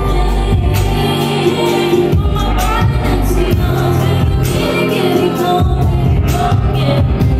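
Live band playing with a singer: steady bass notes, regular drum hits and sung vocals.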